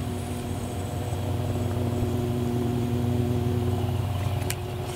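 Steady drone of an engine running at a constant speed, unchanging in pitch, with a single sharp click near the end.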